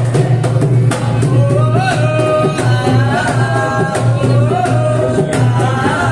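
Music with singing: an ornamented melody with sliding notes over a steady drum beat, typical of the folk-song accompaniment to a Rajasthani kathputli puppet show.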